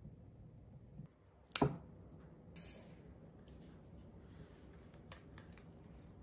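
Tableware being handled at a meal: one sharp knock about a second and a half in, a short scraping rustle a second later, then a few light clicks of chopsticks and the plastic sushi tray.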